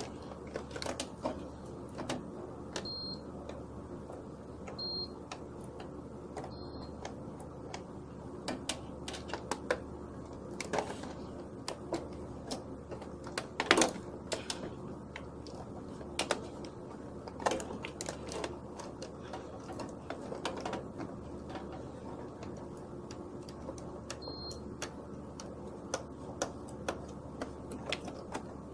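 Irregular light clicks and taps of test leads and wiring being handled in an electrical panel, with one sharper click about halfway through. Four short high beeps from a clamp multimeter sound among them, three in the first seven seconds and one near the end.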